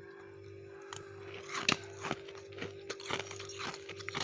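Crisp, squeaky crunching of freezer frost: after a quiet first second, a quick irregular run of sharp crunches, the loudest a little under two seconds in, over a steady low hum.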